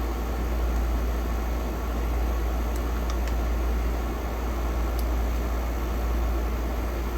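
A steady low machine hum, with a few faint light clicks in the middle.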